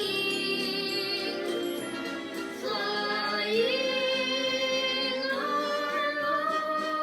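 A musical theatre song sung over a backing track. Long held notes with vibrato slide up to a higher note about halfway through, and the word "flying" is sung near the end.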